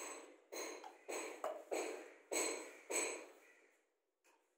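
A series of about six sharp knocks, roughly half a second apart, each ringing briefly: PVC drain fittings, a reducer bush with a rubber washer, being knocked and pushed into a pipe bend. The knocks stop a little past halfway.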